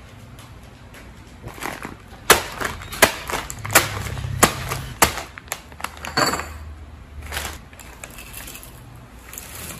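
Crispy chicharon (pork rinds) being crushed by hand inside their plastic bag: a run of sharp crunches and crinkling plastic for several seconds, then quieter.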